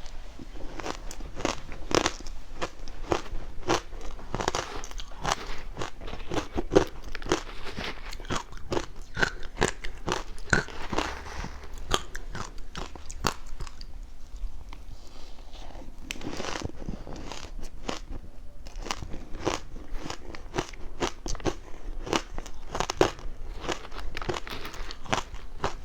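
Close-up crunching of powdery frozen matcha ice being bitten and chewed: dense, irregular crisp crackles, thinning briefly about halfway through.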